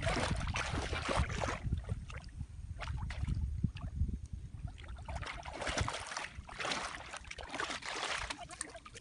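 Shallow river water splashing and sloshing around the legs of waders handling a gill net, in irregular bursts, loudest at the start and again in the second half.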